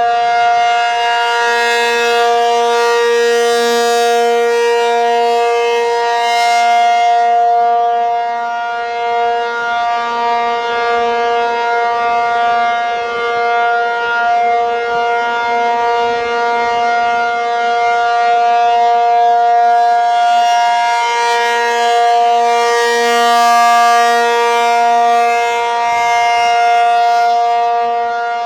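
ACA P-50 outdoor warning siren sounding a steady alert tone at one unchanging pitch. Its sound grows brighter and duller slowly as the rotating head turns toward and away, brightest at the start and again about twenty seconds in.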